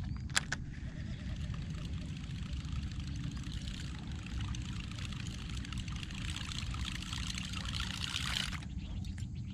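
DEPS Huge Buzzbait Type 2 churning and gurgling across the water surface as it is reeled in. The sound grows louder as the lure nears and cuts off suddenly near the end. A sharp click comes about half a second in.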